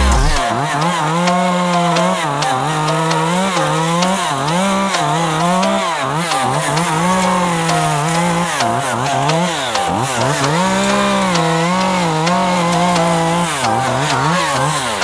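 Two-stroke chainsaw running at high throttle while cutting wood, its pitch dipping and recovering again and again as the chain loads in the cut.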